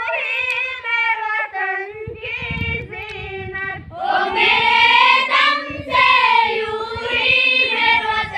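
A group of schoolchildren singing together in unison, a slow song with long held notes that gets louder about halfway through.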